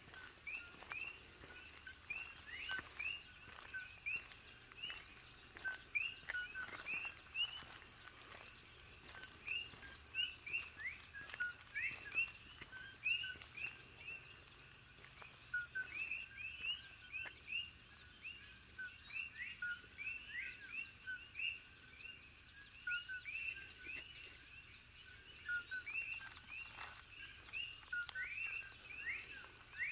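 A dense dawn chorus of many short, repeated chirping calls, some rising in pitch, over a steady high-pitched insect drone.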